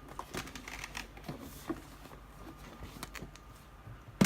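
Cardboard boxes being handled and shifted: scattered light scrapes, taps and rustles, with one sharp thump near the end.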